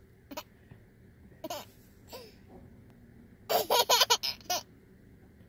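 A small child with the hiccups laughing. There are two short single sounds in the first two seconds, then a loud run of quick laugh pulses about three and a half seconds in.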